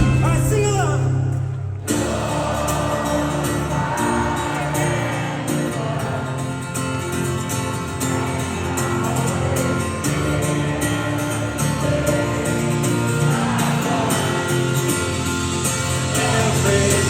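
Live band playing in an arena with wordless singing. A held bass note and sliding vocal lines open it, then the full band with drums and cymbals comes in about two seconds in and carries on steadily.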